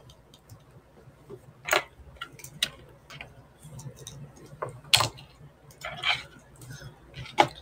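Light clicks and taps of cutlery and food containers being handled during a meal: about five short, irregularly spaced clicks over a faint room hum.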